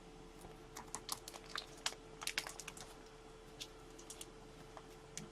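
Faint, irregular light clicks and taps over a faint steady hum.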